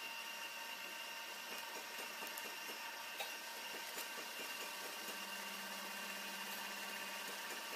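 Milling machine running steadily as its gear cutter cuts teeth into a plastic helical gear blank, with a few faint clicks and a low hum coming in about five seconds in.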